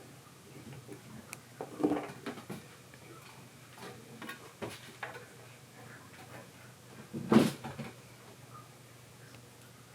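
Kittens playing in a cat playhouse: scattered bumps and knocks, with a cluster about two seconds in and the loudest knock about seven seconds in.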